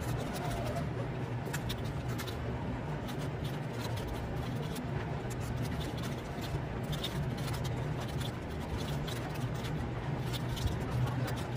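Typing on a computer keyboard: irregular quick key clicks over a steady low background hum.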